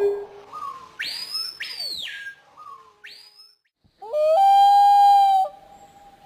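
A series of strange bird calls: a few short whistled swoops that rise and fall, then a loud, steady, held call lasting just over a second.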